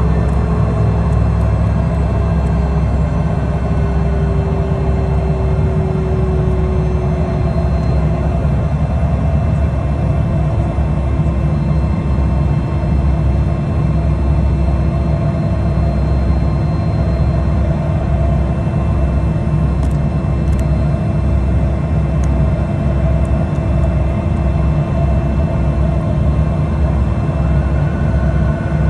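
Cabin noise of a Pilatus PC-24 taxiing, its two Williams FJ44 turbofans running steadily at low taxi power over a low rumble. An engine tone slides down in pitch over the first several seconds and then holds steady.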